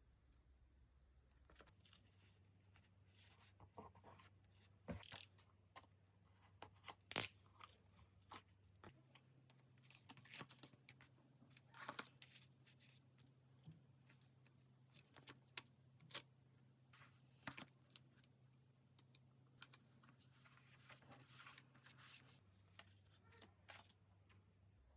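Stickers and paper being peeled and handled at a desk: scattered small crackles, taps and soft rustles, with the sharpest snap about seven seconds in.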